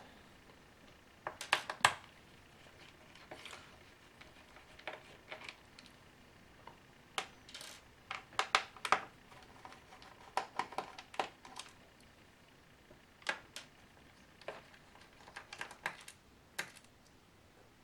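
Scattered small clicks and ticks of a precision screwdriver turning small screws out of a laptop's bottom case, with the loose screws set down on a table.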